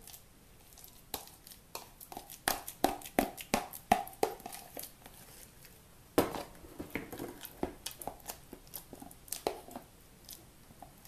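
Banana being mashed by hand with a fork: irregular clicks and knocks of the fork against the dish, coming quickly between about two and four seconds in, with one harder knock about six seconds in.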